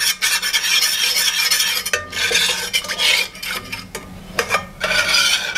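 Metal spoon stirring and scraping around a stainless steel saucepan, mixing potato starch into cold water, with a short pause about four seconds in.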